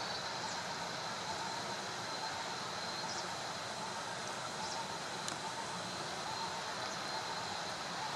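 Steady rush of a shallow river running over stones, with a thin high steady tone through it and a few faint, short high chirps now and then.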